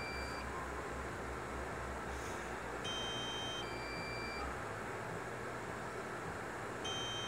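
Electronic two-note warning chime from the DJI Mavic 2 Pro's flight app, a higher note then a lower one, repeating about every four seconds over a low steady hum. It is the low-battery warning sounding while the drone returns to land.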